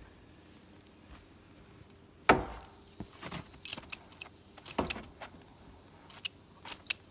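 Hand tools and plastic tubing being handled at a plastic tank: a sharp knock a couple of seconds in, then an irregular scatter of small clicks and taps.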